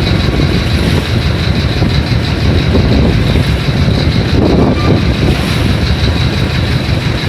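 Strong wind buffeting the microphone in a loud, steady low rumble, briefly a little stronger about four to five seconds in.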